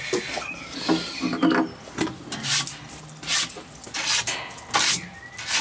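Wiping and rubbing across a wooden tabletop: a series of short rubbing strokes, about two a second.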